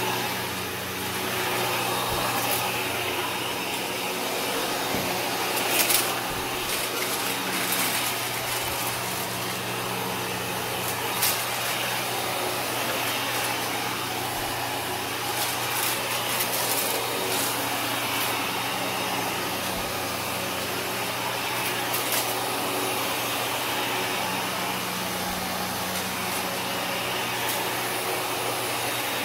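Kenmore upright vacuum cleaner running steadily on carpet, with short sharp crackles now and then as it sucks up crunchy debris.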